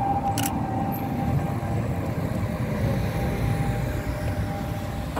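Duewag MGT6D low-floor tram running on street track with a steady low rumble and a faint whine that fades as it draws away. A short high click comes about half a second in.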